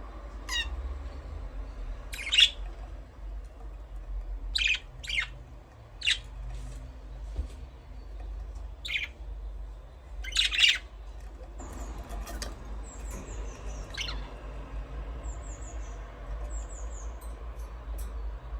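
Small cage birds chirping: separate sharp chirps every second or two, the loudest about ten seconds in, then quick high falling twitters in short groups through the second half. A steady low hum runs underneath.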